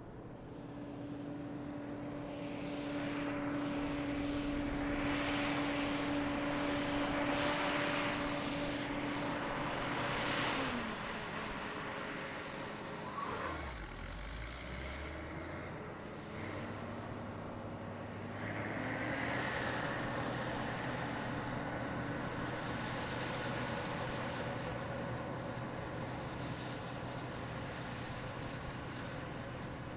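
Combine harvester running with a steady engine hum over a rushing noise. About ten seconds in, its tone slides down. A few seconds later a different steady engine note with a faint whine takes over.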